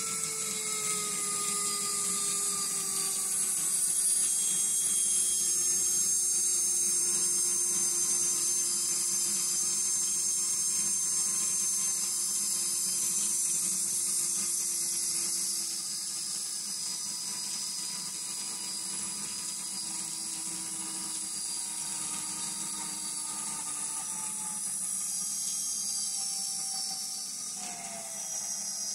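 Electronic diesel locomotive sound from the MRC Sound & Power 9001 throttle's loudspeaker: a whining engine drone over a hiss, its pitch sliding slowly down over about 25 seconds as the momentum setting eases the throttle back.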